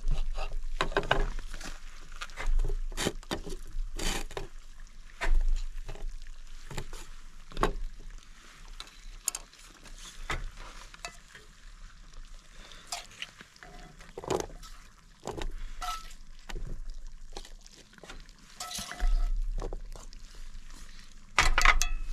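Irregular clicks, taps and scrapes of food being plated: a knife cutting steak on a wooden board, then green beans being tipped and scraped from a cast-iron skillet onto a plate.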